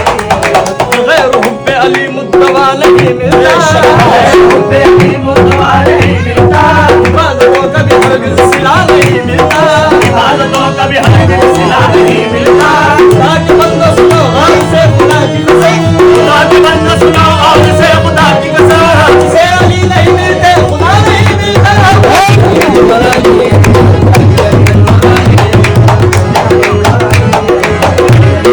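Qawwali music with tabla playing a steady rhythm under a wavering melody line.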